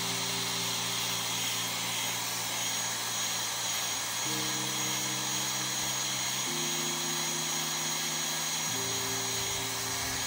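Hairdryer blowing hot air steadily, with a thin high whine over the rush of air, heating the phone's screen edge to soften the adhesive. It cuts off at the very end. Under it, soft background music holds low chords that change every couple of seconds.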